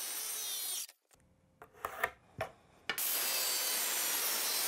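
Porter-Cable circular saw cutting through half-inch plywood: a steady rasping hiss with a thin high whine. The sound breaks off about a second in, leaving a few faint clicks and taps. The cut resumes about three seconds in.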